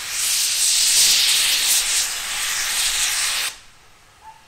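Steam locomotive releasing steam in a loud continuous hiss that cuts off abruptly about three and a half seconds in.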